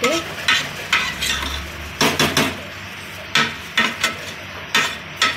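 A metal spoon pressing rice flat in an aluminium pressure cooker, scraping and knocking against the pot in a string of irregular sharp knocks as the half-cooked biryani rice is levelled.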